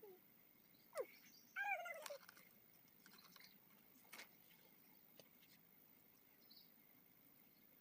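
A cat meowing twice about a second in: a short falling call, then a longer one. After that there are only a few faint ticks.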